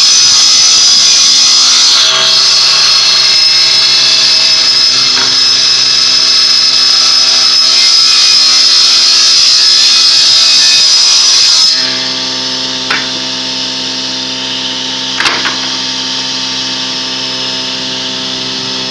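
Woodworking power tool running: a loud, steady high-pitched whine with hiss. About twelve seconds in it drops to a quieter steady hum with a few faint clicks.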